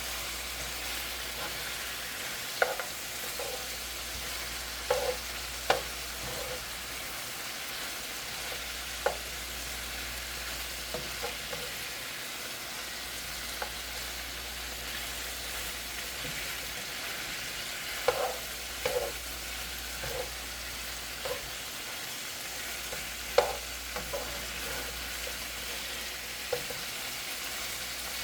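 Curry chicken sizzling as it fries in the pot, a steady hiss. Stirring brings scattered sharp knocks of the utensil against the pot, a few clustered around 5 seconds in and again around 18 and 23 seconds.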